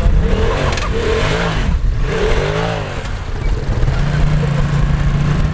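A vehicle engine revving up and falling back twice, then running at a steady speed.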